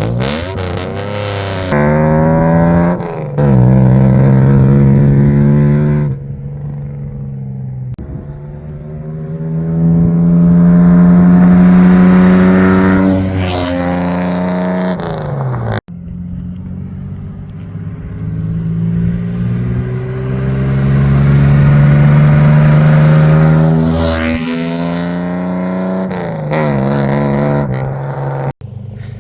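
1972 Dodge Polara's Slant Six inline-six engine and exhaust under hard throttle, revving up and down in repeated pulls. The pitch holds high for several seconds at a time before falling away, and the sound breaks off abruptly twice.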